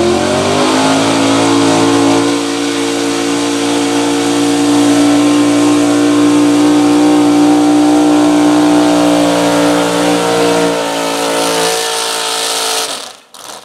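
Pulling truck's engine at full throttle, dragging a weighted sled down the dirt track. The pitch climbs in the first second or so, then holds high and steady for about ten seconds, eases slightly near the end, and cuts off suddenly.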